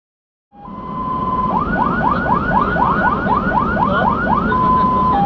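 Fire engine's electronic siren cutting in about half a second in: a steady tone, then a fast run of rising sweeps, about three a second, then switching near the end to a two-tone hi-lo, over the rumble of the truck's engine and tyres.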